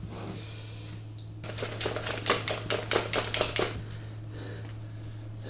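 Spoon beating cake batter in a mixing bowl: a quick run of clicking taps against the bowl, about five a second, lasting roughly two seconds in the middle.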